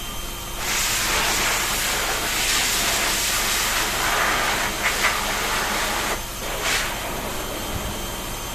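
Water spraying in a steady fine hiss, a shower for a pet bird. The spray stops about six seconds in, then comes one short burst.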